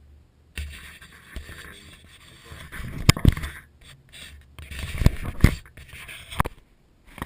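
Handling noise: scraping and rustling, broken by several sharp knocks about three, five and six seconds in.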